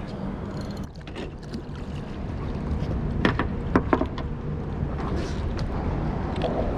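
Steady low rumble of a small fishing boat on the water, with a few sharp knocks a little past the middle.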